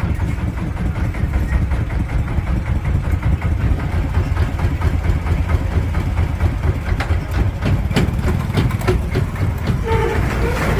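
Engine of a small river ferry running steadily, a heavy low rumble, with a few sharp knocks about seven or eight seconds in.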